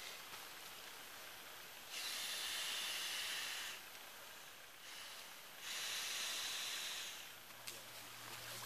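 Orange foam sleeping pad sliding and rubbing against the nylon of a hammock as it is worked inside: two long hissing swishes, each lasting about a second and a half.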